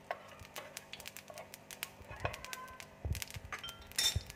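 Whole cumin seeds crackling in hot oil in a frying pan, as scattered sharp pops, being tempered. A louder knock comes a little after four seconds.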